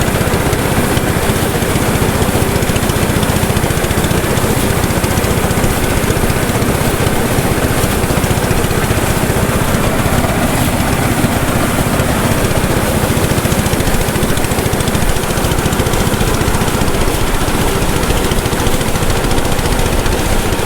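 Engine-powered rice thresher running steadily, a loud, even mechanical din.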